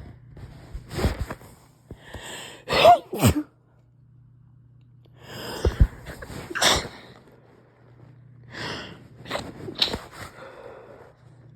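A person sneezing in bouts a few seconds apart, deliberately induced sneezes with some stifled. Each bout starts with a breathy build-up and ends in one or two sharp sneezes.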